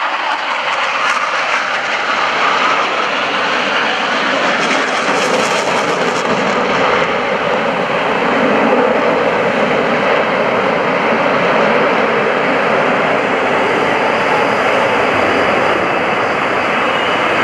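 Jet noise from US Navy Blue Angels F/A-18 Hornets, their F404 turbofan engines running loud and steady throughout.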